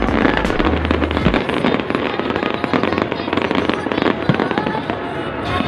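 Fireworks display going off: a dense, continuous crackle of many small bangs and pops.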